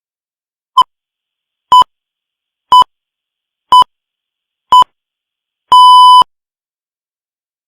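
The Greenwich Time Signal, 'the pips': five short beeps one second apart, then a longer sixth beep that marks the exact start of the hour.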